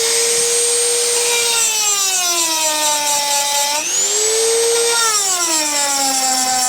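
Small high-speed electric motor of a handheld chainsaw-chain sharpener, whining at full speed and then dropping in pitch as it grinds a tooth. It spins back up about four seconds in and drops again on the next tooth.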